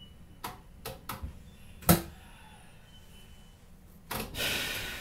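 Inside a Kintetsu 22000 series ACE train car at the end of its run: a low rumble with scattered clicks and knocks, the sharpest about two seconds in, then a brief burst of hissing about four seconds in.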